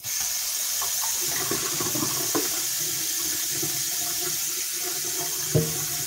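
Water running from a tap into a sink, starting suddenly and then running steadily; a short knock about five and a half seconds in.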